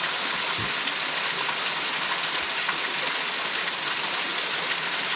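Small creek waterfall splashing down rocks into a pool: a steady, even rushing hiss.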